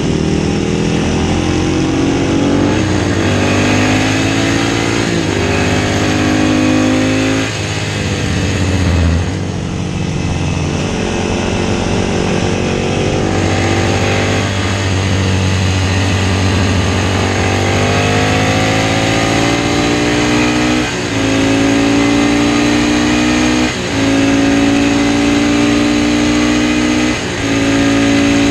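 Classic racing motorcycle engine at racing speed, its pitch climbing and then dropping at each gear change. There are three quick upshifts, a lull in the middle as it slows, then it pulls hard again through three more upshifts near the end.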